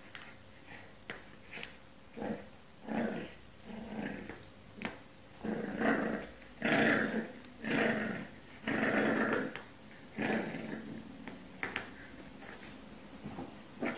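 A ten-week-old French Bulldog puppy growling in a string of short bursts, loudest in the middle.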